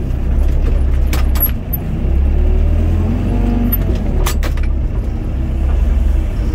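Doosan DX55 mini excavator's diesel engine running steadily under load, heard from inside the cab, as the boom and bucket move. A pitch bends up and down about three to four seconds in, and there are two sharp knocks, about a second in and about four seconds in.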